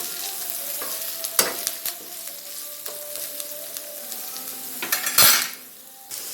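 Onion, garlic and crushed black pepper sizzling in hot oil in a pan while being sautéed, with a spatula clicking and scraping against the pan. The loudest scrape comes a little after five seconds, followed by a brief quieter spell.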